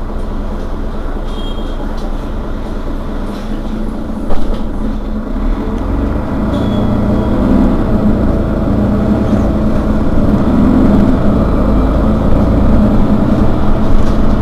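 Mercedes-Benz Citaro Facelift city bus's rear engine running at a standstill, with a sharp knock about four seconds in; after the knock the engine sound grows steadily louder and deeper.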